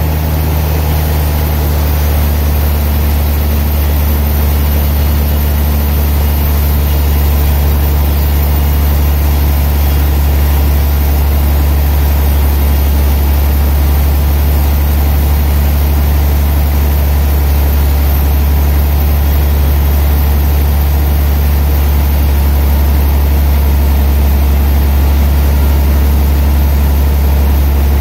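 Sawmill machinery running steadily with a loud, unchanging low hum.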